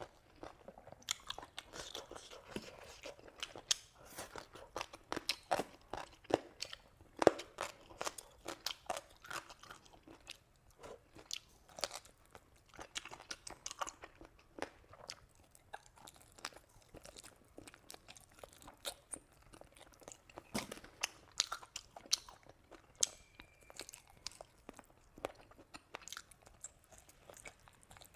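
A person chewing and biting food close to the microphone, with many short, irregular crunching clicks.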